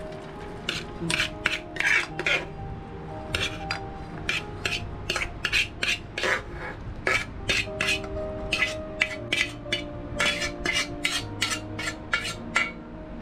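Stainless-steel pot and spoon clinking and scraping against a steel strainer as boiled chana dal is tipped in to drain, in quick, irregular metallic knocks.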